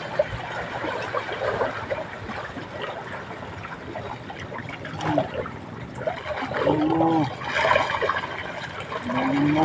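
Water trickling and lapping steadily. Short pitched, voice-like calls come about halfway through, again a little later, and near the end, where one rises in pitch.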